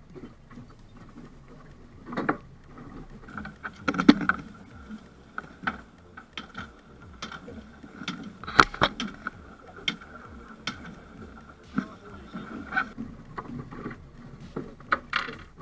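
Irregular sharp knocks and thuds of a wooden club striking a freshly landed small tuna and the fish thrashing against the boat's deck; the loudest blows come about four and nine seconds in.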